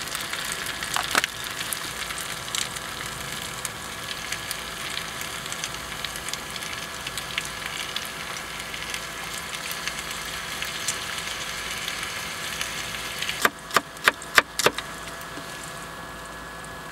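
Food sizzling and frying in a hot pan, a steady hiss with scattered crackles and pops. About 13 seconds in comes a quick run of five sharp knocks.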